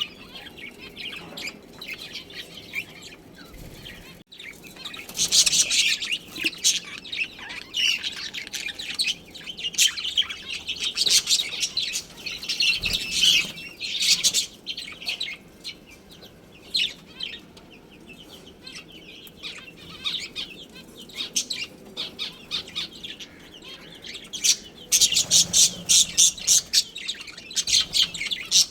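Budgerigars chirping and chattering in quick, high-pitched twitters, with louder flurries of chirps several times.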